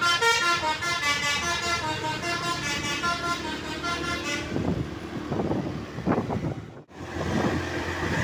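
Tour bus's Basuri 'telolet' musical horn playing a tune of quick stepped notes, which stops about four and a half seconds in, leaving the bus's running noise. The sound drops out abruptly for a moment near seven seconds, then vehicle noise carries on.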